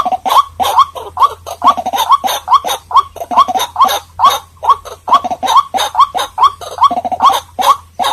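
White-breasted waterhen calling: an unbroken run of short, harsh rising notes repeated about three to four times a second.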